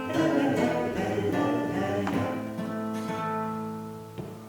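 Acoustic guitar playing the closing chords of a song, strummed and then left ringing, fading out near the end.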